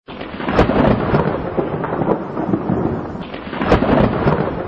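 Thunder rumbling over steady rain, with two heavier rolls, one about half a second in and another near three-quarters of the way through.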